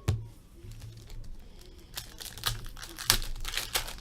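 Plastic-foil trading-card pack wrapper crinkling and rustling as it is torn open and the cards handled, with a sharp snap at the start and a run of crackles about two seconds in.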